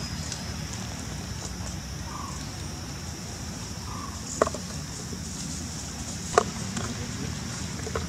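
Outdoor ambience: a steady high-pitched hum over a low rumble, with faint short calls every couple of seconds. Two sharp clicks, one about halfway through and another two seconds later, are the loudest sounds.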